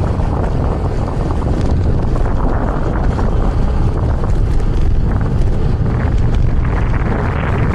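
Strong wind buffeting the microphone of a cyclist riding in gusty side winds: a loud, steady rumble that is heaviest in the low end.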